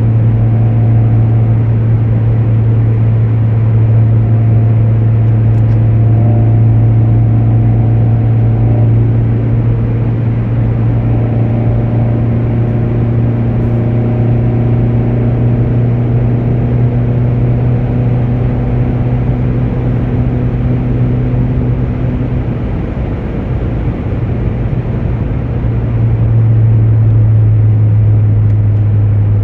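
Car engine droning steadily under way, heard from inside the cabin. The level eases off briefly about two-thirds of the way through, then picks up again.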